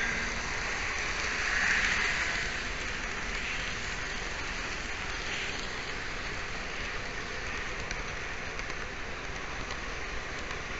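N scale model train running on Kato Unitrack, picked up as a steady hiss by a mini camera riding on the train; it swells briefly about two seconds in.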